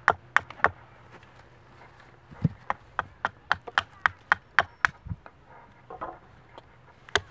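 Hatchet chopping at a wooden stake to sharpen it, a series of sharp chops: four quick ones at the start, then a steady run of about three a second from about two and a half seconds to five seconds, and another near the end.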